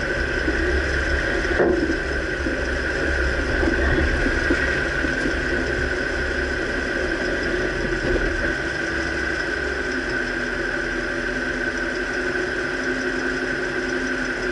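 2009 Dodge Ram pickup running, a steady engine drone with low rumble, with a single knock about a second and a half in: the kind of clunk the owner is chasing in the front right suspension.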